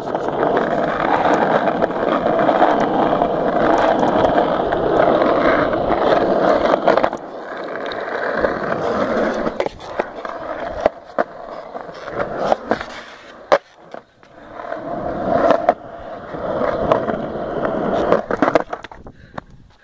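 Skateboard wheels rolling over street asphalt and a concrete sidewalk. A loud steady rolling noise gives way about seven seconds in to a quieter stretch with several sharp clacks, then grows loud again before dropping off near the end.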